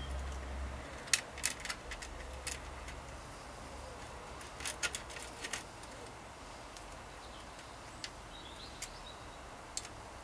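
Scattered light metallic clicks and taps as a mudguard stay is bolted to a bicycle's rear dropout eyelet with an Allen key and nut: a few small clicks close together early on and about halfway, then single ones, over a low steady hum.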